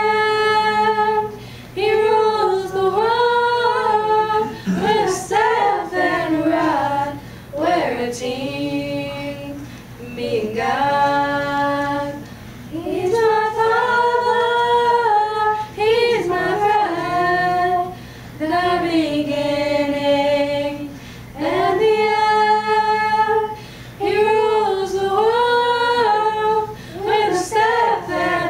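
Small junior church choir of young voices singing a song a cappella, in phrases of a few seconds with short breaks for breath between them.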